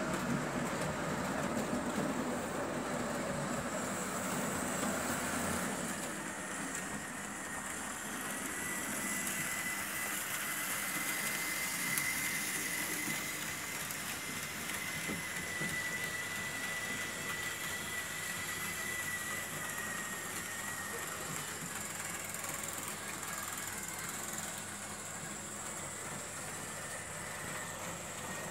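Märklin H0 model trains running on the layout: a steady rolling rattle of wheels on the track with the hum of the locomotive motors. A faint high whine holds for a while in the middle.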